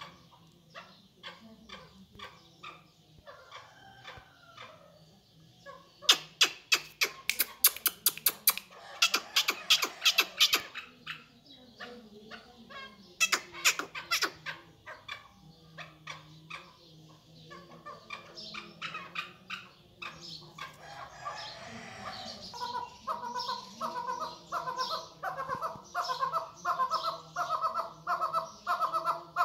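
Chukar partridge calling: a series of short, sharp chuck notes, with two loud rapid runs in the first half. Later it settles into a regular pitched chuck-chuck call, about three notes a second, growing louder toward the end.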